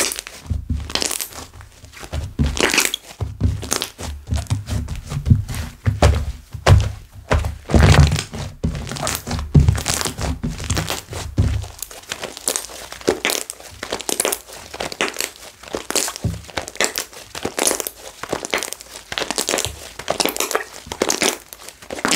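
Slime being squished, pressed and stretched by hand, making quick irregular sticky clicks and pops, with soft low thuds in the first half and finer crackling later.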